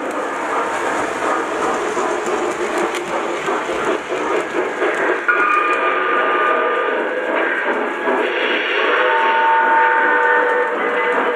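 Lionel O-gauge model steam locomotive's electronic sound system blowing its multi-tone steam whistle twice, a short blast about five seconds in and a longer one near the end, over the clatter of model train wheels on the track.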